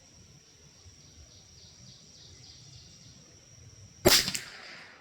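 A single .22 LR rifle shot from a Bergara B14R bolt-action rifle, a sharp crack about four seconds in with a short fading tail. Before it, only a faint steady high-pitched hum in the background.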